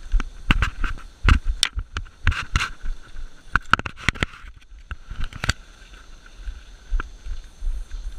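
Irregular knocks and clicks of footsteps and gear as a player moves off, bunched in the first five seconds or so, with one more knock about seven seconds in.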